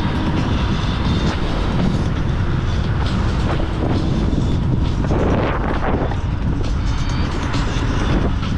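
Riding noise from a Dualtron X2 Up electric scooter: steady, loud wind rumble on the microphone mixed with road noise.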